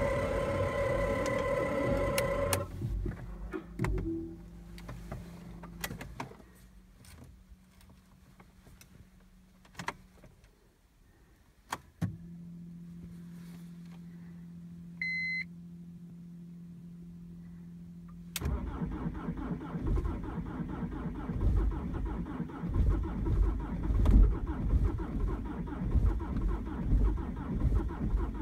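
Cold start of a BMW E46's 2.0-litre four-cylinder diesel in hard frost. After a few clicks, a steady low hum and a short beep, the engine catches about eighteen seconds in and runs loud with an uneven, pulsing beat. A steady sound with several pitches stops about two and a half seconds in.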